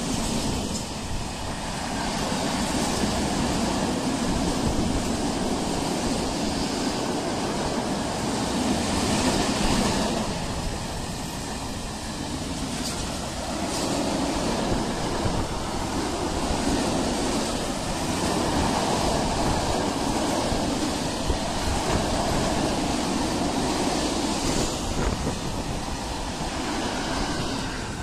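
Freight train of open-top coal wagons rolling past close by: a steady, loud rumble of wheels on the rails that swells and dips slightly as the wagons go by.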